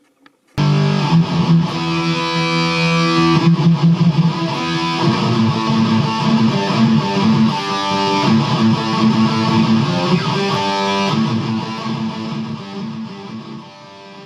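Distorted electric guitar playing chords and a riff, starting abruptly about half a second in and easing down near the end.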